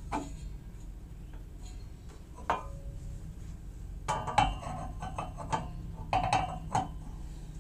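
Metal pet food bowls clinking and knocking as they are handled against the barstool's bowl holder: a knock near the start, one with a short ring midway, then two quick clusters of clinks with ringing near 4 and 6 seconds.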